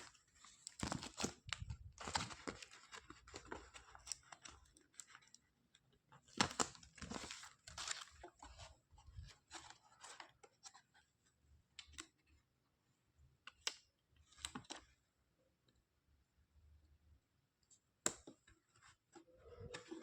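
Toy pieces and packaging being handled: bursts of rustling, tearing and clicking that come in clusters, with quiet gaps between, and a sharp click near the end.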